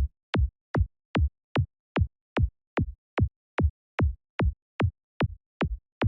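Synthesized psytrance kick drum from the Kick N Bass Gel software synth, looping alone at about two and a half hits a second. Each hit is a short click that drops quickly in pitch to a deep thump, with the kick's low end tuned to D.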